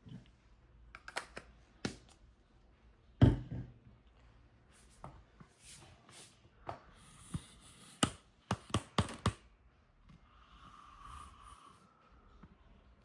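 Handling noises: scattered light taps and clicks, a heavier thump about three seconds in, and a quick run of sharp clicks around eight to nine seconds.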